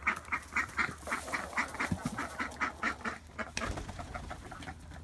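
Ducks quacking in a rapid series of short calls, about four a second, thinning out after about three seconds.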